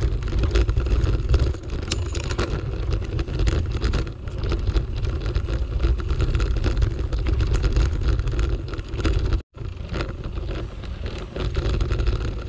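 Wind buffeting the microphone over the rumble of a bicycle riding a bumpy dirt forest path, with many small clicks and rattles from the bike and the ground. The sound cuts out for an instant about nine and a half seconds in.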